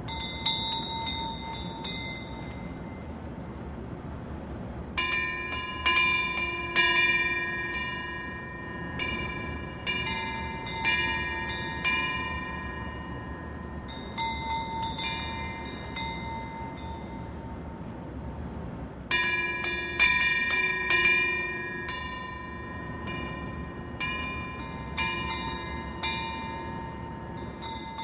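Korean temple eave wind bells (pungyeong) ringing in the wind: clusters of clanging metallic strikes whose tones ring on, coming in several bursts with pauses of a couple of seconds between.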